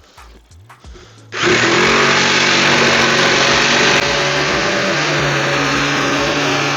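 An electric power saw starts up about a second and a half in and runs steadily, cutting out a piece of wood for the track base.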